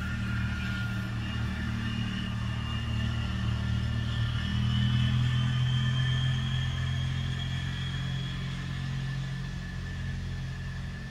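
Bailey electric pottery wheel motor running steadily under load with a low hum and a faint high whine that rises slightly in pitch midway.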